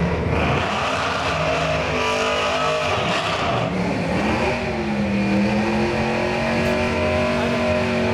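Pontiac Firebird Formula's V8 revved hard in a drag-strip burnout, spinning the rear tyres. The engine note climbs, dips about three seconds in, then climbs again and holds steady at high revs.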